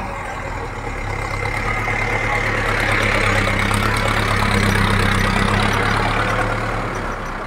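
Mahindra Arjun tractor's diesel engine running as it drives close past, towing a loaded trolley. It grows louder to a peak midway, then fades as it moves away.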